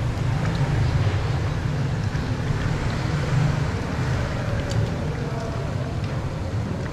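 Steady low rumbling roar, as of a large gas burner firing under a cooking pot, with a few faint ticks in the second half.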